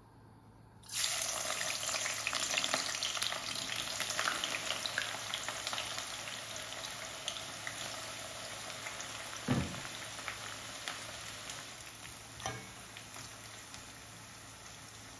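Sliced red onions dropped into hot oil in a stainless-steel kadai: a sudden sizzle starts about a second in, crackles densely and slowly settles as they fry in plenty of oil. A dull knock comes near the two-thirds mark, with a lighter one a few seconds later.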